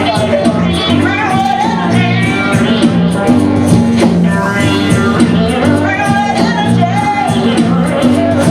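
Live band playing, with a repeating bass line and singing.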